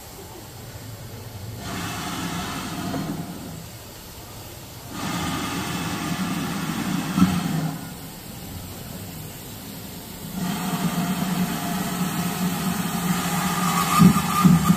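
GWR 5101 Class 2-6-2 tank steam locomotive No. 5199 creeping forward under its own power towards a water column. Its running noise, a low rumble with hiss, comes in three spells of a couple of seconds each with quieter gaps between, and is loudest near the end as the engine draws close.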